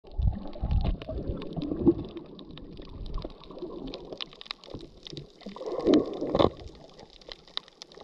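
Water noise picked up by a camera held underwater: uneven low rumbling, loudest in the first two seconds and again around six seconds in, with many short sharp clicks scattered throughout.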